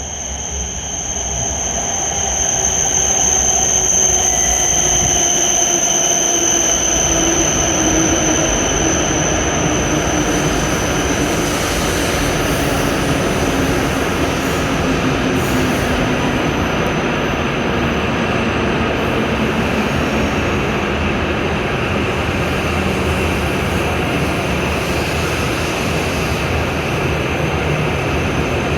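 E7 series Shinkansen train pulling into the platform and slowing, its traction motors' whine gliding down in pitch over a steady rush of wheel and running noise.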